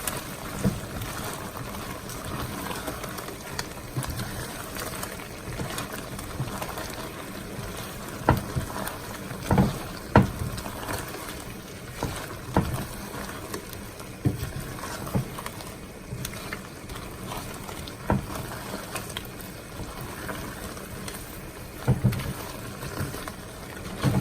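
Shrimp simmering in garlic butter sauce as they are stirred: a steady simmer broken by irregular knocks and clinks of the utensil against the pot.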